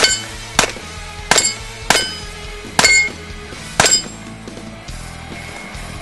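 Six revolver shots fired in a quick string, roughly half a second to a second apart, each with a short metallic ring as steel plate targets are hit. Background rock guitar music plays under the shots.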